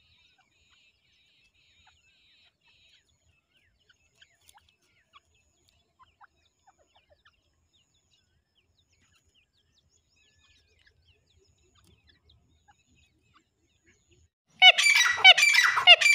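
Grey francolin (Dakhni teetar) calling: after a long quiet stretch with only faint ticks, a loud burst of several harsh, quickly repeated call notes comes near the end.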